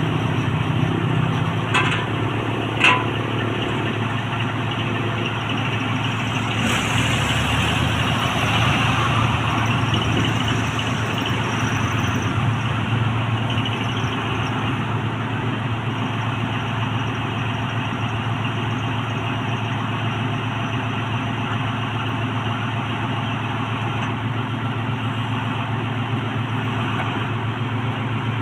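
Diesel engine of a horizontal directional drilling rig running steadily under work. A single sharp metallic knock about three seconds in, and a brief rise in hiss around seven to ten seconds in.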